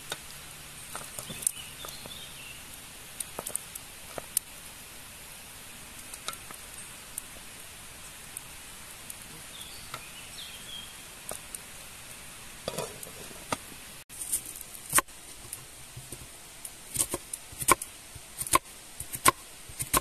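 Pot of calf heart pieces boiling over a wood fire, stirred with a wooden spoon that knocks now and then against the pot. About two thirds of the way through, a knife starts chopping an onion on a wooden board: a run of sharp knocks, coming faster near the end.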